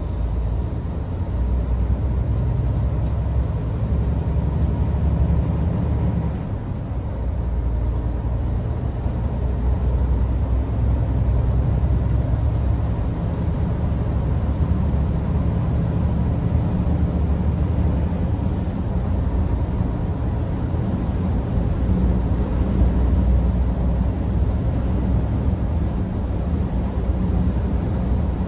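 Inside a lorry cab on the move: the steady low rumble of the HGV's diesel engine together with road noise, with a brief dip about six seconds in.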